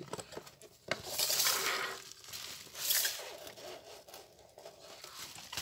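Plastic bubble wrap rustling and crinkling as it is handled, with the cardboard box rubbing against the table. The rustling grows louder about a second in and again about three seconds in, and there is a light tap just before the first louder spell.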